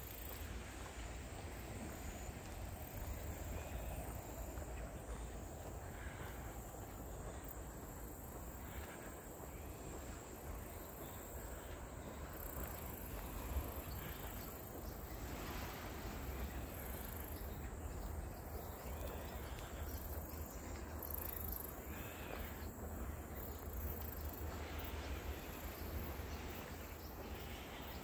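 Wind rustling the leaves of tall silver grass (Miscanthus), a steady dry swishing with low wind rumble on the microphone.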